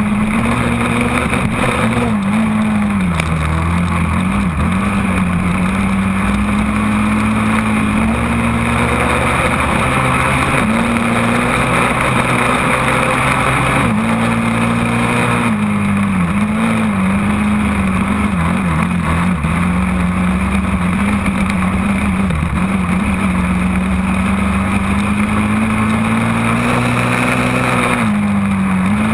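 Quad (ATV) engine running at steady throttle, heard close from the machine itself, its pitch dipping and coming back up a few times. A steady rush of wind noise runs underneath.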